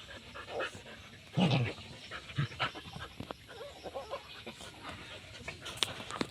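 A dog panting while it plays, with a short low vocal sound about a second and a half in and scattered small clicks and scuffles.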